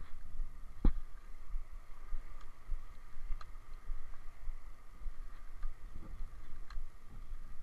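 Muffled, steady low rumble of water heard through a submerged camera, with one sharp knock about a second in and a few faint clicks.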